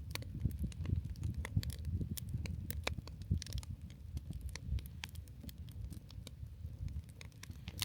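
Wood campfire crackling, with many irregular sharp pops and snaps over a low rumble.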